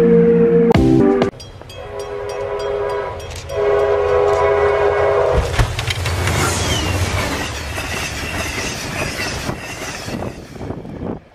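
Diesel passenger train's horn sounding two long blasts as it approaches, then the train rushing past at speed, a loud rush of churned snow and wind with rumbling wheels.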